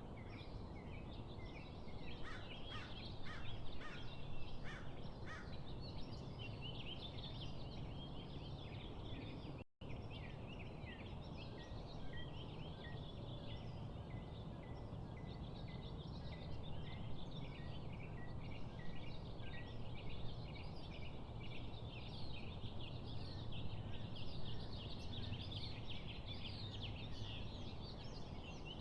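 Many wild birds chirping and trilling together in a dawn chorus, over a low steady background rumble, with a brief dropout a little under ten seconds in.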